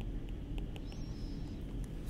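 Low steady room hum with a few faint, light clicks of a stylus tapping on a drawing tablet as handwriting is added.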